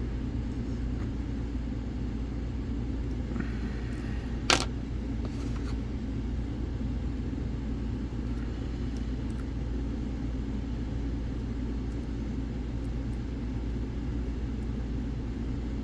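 A single sharp click from lock picking on a six-pin lock, about four and a half seconds in, over a steady low rumble.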